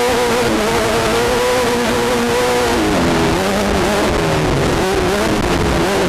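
Class 10 desert race car's engine heard from inside the car, held at high revs. The engine's pitch drops about three seconds in, then rises and falls repeatedly. A constant rushing noise with low knocks runs underneath.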